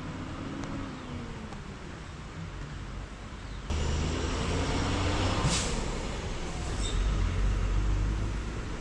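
A bus's engine running as it drives past on a road, coming in abruptly about four seconds in as a low rumble. A short sharp hiss comes about halfway through the pass, of the kind an air brake gives. Before the bus there is a quieter steady outdoor noise.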